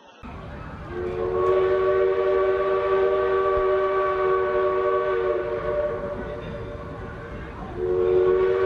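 Steam locomotive whistle blowing a chord of several notes at once: one long blast starting about a second in and lasting about four seconds, then a second blast starting near the end, over the low rumble of the train.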